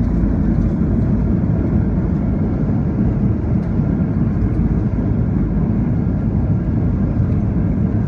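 Cabin noise of a Ryanair Boeing 737 rolling down the runway after touchdown: a loud, steady, low rumble of engines and wheels on the runway heard inside the cabin.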